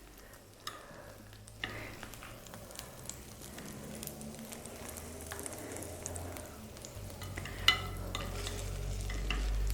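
Light kitchen handling sounds of a baked potato being set on a serving plate: faint scrapes and clicks, with one sharp clink about three-quarters of the way through, over a low steady hum that grows louder toward the end.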